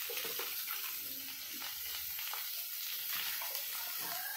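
Sliced ivy gourd (kundru) and potato sizzling steadily in hot oil in a kadhai, with a spatula scraping through them now and then.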